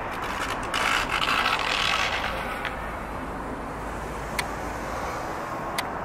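Steady hum of urban traffic, with a brief rasping, scraping burst about a second in and two sharp clicks near the end.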